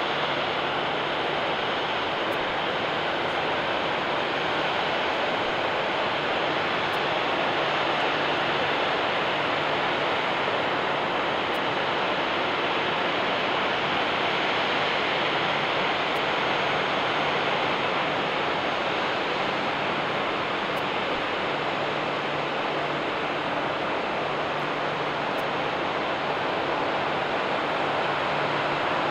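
Steady jet engine noise from an airliner: an even rush with a faint low hum underneath, holding level throughout.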